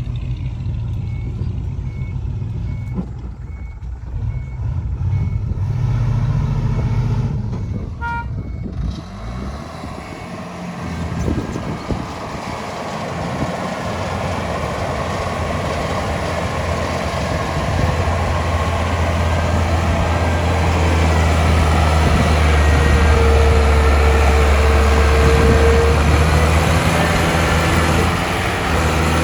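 Heavy diesel earthmoving machinery running, with a reversing alarm beeping about one and a half times a second for the first several seconds. The engine grows louder in the second half.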